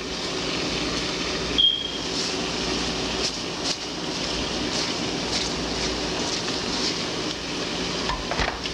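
Ground beef sizzling and crackling in a hot pot, a steady frying hiss with small pops. About one and a half seconds in there is a brief high ring.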